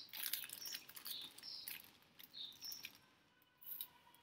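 Crackle of a Cheetos bag being handled and cheese puffs being eaten, busiest in the first two seconds, with several short high-pitched chirps.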